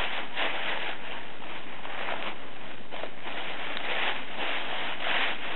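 Campfire of dry wood crackling and hissing, with a sharp pop or two.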